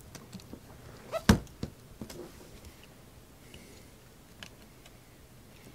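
Hands handling a small plastic power-supply enclosure and the parts inside it: one sharp knock a little over a second in, with a few lighter clicks and taps around it and another later on.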